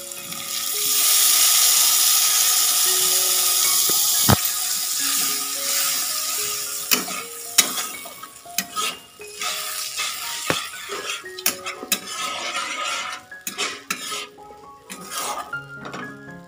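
Water poured into hot fried onion-tomato masala in a kadai sizzles loudly for the first five or six seconds. A metal spatula then stirs the thinning gravy, scraping and clicking against the pan.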